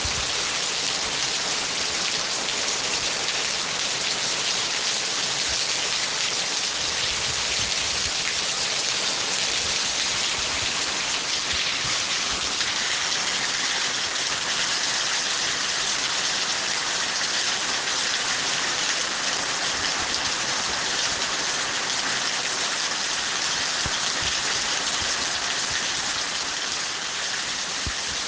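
Steady heavy rain falling and pattering on surfaces, a dense even hiss with a few faint low rumbles.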